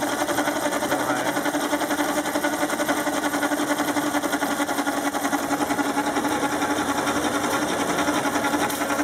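Cordless drills running steadily, driving the two inputs of a hand-built planetary gear train at about 400 RPM: an even whir of drill motors and meshing gears with a constant hum that holds without change.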